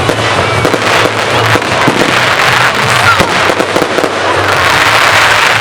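A dense barrage of display fireworks: continuous crackling and rapid pops, with short whistling glides through it.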